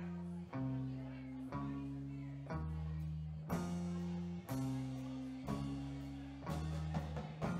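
Live band playing: an electric bass holds a repeating line of notes that change about once a second, under electric guitar and a drum kit.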